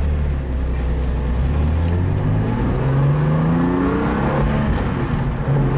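BMW E36 M3's S52 straight-six pulling away from a stop, heard from inside the cabin: the revs climb steadily for a few seconds, dip briefly at a gear change near the end, then start rising again.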